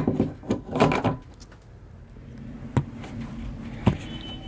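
Two sharp plastic clicks about a second apart as a hose is fitted onto a threaded plastic fitting on a tank top, over a steady low hum.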